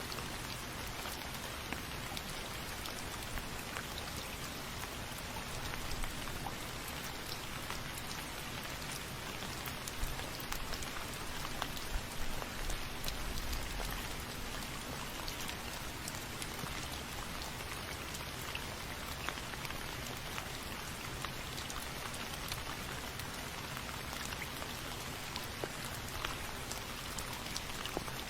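Steady rain falling, with fine scattered ticks of single drops throughout and a brief soft low rumble about halfway through.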